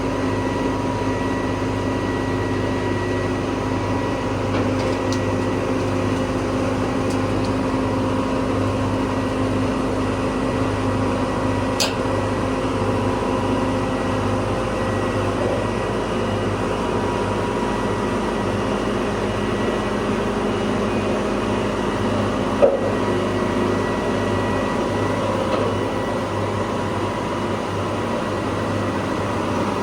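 Case IH combine harvester's diesel engine running steadily as the combine is loaded onto a trailer, a constant hum with no revving. A single short knock about 23 seconds in.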